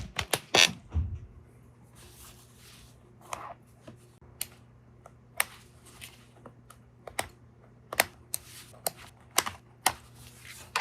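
Stitches being unpicked from a sewn seam: a dozen or so sharp, irregular ticks as threads are cut, with some handling of the fabric in the first second and a low steady hum underneath.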